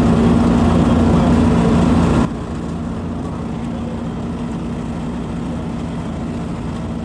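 Engine of a leaf-vacuum rig running at a steady speed with a low, even hum. About two seconds in, it suddenly drops in loudness and turns duller, then runs on evenly.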